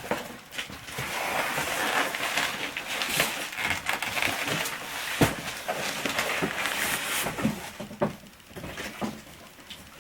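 Cardboard box and packing material rustling and scraping as the boxed monitor and its contents are slid out, with scattered clicks and one sharp knock about five seconds in.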